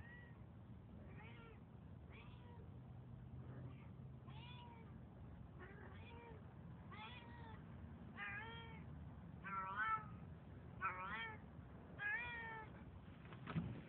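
A cat meowing over and over, about a dozen meows roughly a second apart, getting louder in the second half. It is a plaintive meowing that the uploader took as a sign the cat was hungry.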